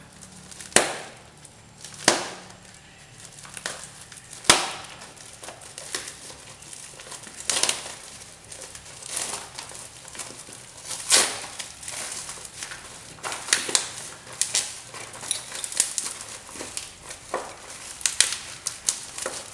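Plastic shipping packaging handled and unwrapped by hand, crinkling with irregular sharp crackles and snaps, the loudest about a second, two seconds and four and a half seconds in, and a denser run in the last few seconds.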